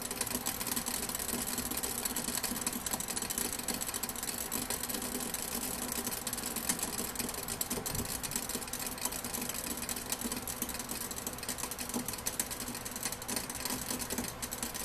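Water at a rolling boil in the glass flask of a countertop steam distiller, a steady dense crackle of bubbles. The steam rises through packed fir needles: the distillation is under way.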